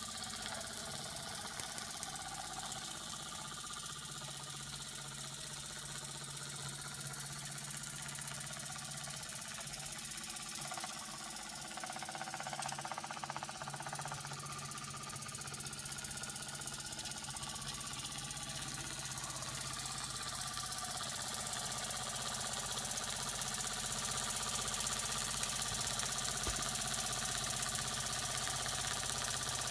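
Small antique Buckman twin-cylinder toy steam engine running, a fast, even mechanical clatter over a steady hiss, getting a little louder in the last third.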